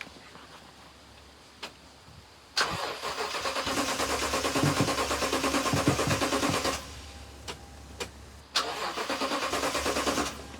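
Starter cranking a 2010 Toyota Tundra's 5.7-litre V8 in two tries, about four seconds and then about two seconds, the engine turning over evenly but never catching. The owner takes the no-start for a lack of spark, since it will not fire even on starting fluid.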